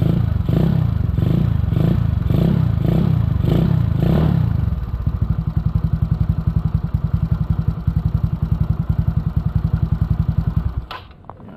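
Yamaha Mio Sporty scooter's single-cylinder four-stroke engine, bored to 160cc, through a ReplicaPro Silent Killer straight-cut exhaust pipe. It is revved in quick throttle blips about twice a second, then settles to a steady, pulsing idle for about six seconds. Near the end it cuts off sharply.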